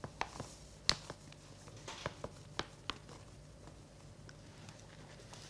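Faint handling sounds of flour being poured from a paper bag into a small glass bowl: a handful of sharp clicks and light taps, the loudest about a second in.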